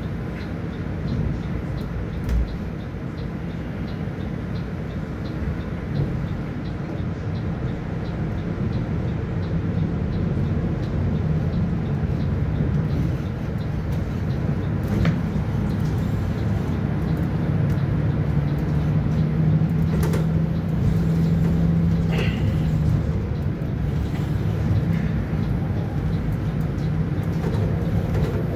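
City bus in motion, heard from inside the cabin: steady engine and road noise, the engine hum growing louder and steadier through the middle, with a few sharp rattles and clicks.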